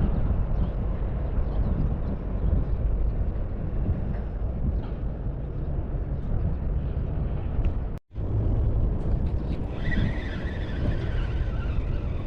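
Wind buffeting the microphone: a steady, uneven low rumble that cuts out for a moment about eight seconds in.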